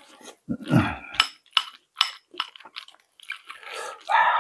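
A person eating spicy jjageuli stew: a low groaning hum about half a second in, then short smacking mouth clicks of chewing at about two to three a second, and a louder noisy burst near the end.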